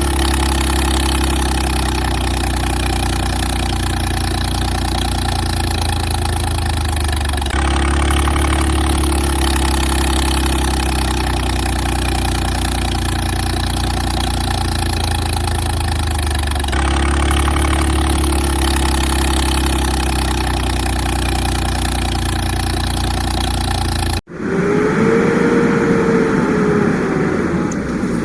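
An engine idling sound effect, a steady hum that repeats the same few-second loop about every nine seconds. About 24 seconds in it cuts off abruptly, and a different sound follows with a tone that rises and falls.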